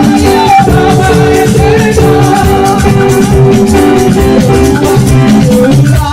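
Loud music with a steady beat of drums and shakers, and a voice singing over held keyboard-like tones.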